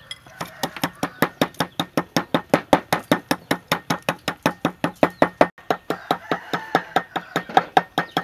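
Wooden pestle pounding peppercorns in a clay mortar: rapid, even knocks, about five a second, starting about half a second in.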